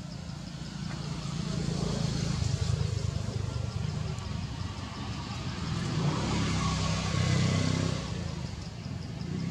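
A motor vehicle's engine running, a low rumble that swells about two seconds in and again near the end before easing off. A faint, even train of insect chirps sounds high above it.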